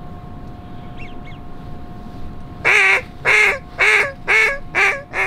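A series of six loud mallard-style quacks, about two a second, starting nearly three seconds in, over a low steady hiss of wind.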